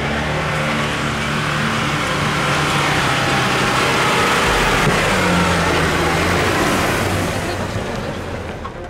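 Jeep Wrangler engine pulling under load up a dirt hill track, with tyre and gravel noise. The engine note shifts about halfway through, and the sound fades toward the end as the Jeep pulls away.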